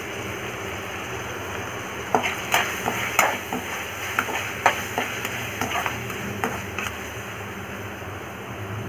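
Chopped onions and tomatoes sizzling as they fry in oil in a pan. From about two seconds in until about seven seconds, a slotted steel spatula stirs them, scraping and clicking against the pan.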